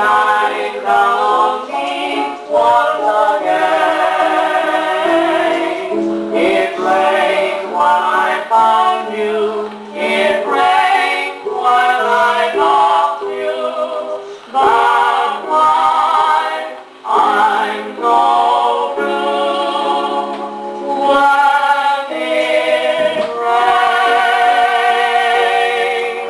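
A 78 rpm record of singing in close harmony played acoustically on a Victor Orthophonic Credenza phonograph, the sound thin with almost no deep bass.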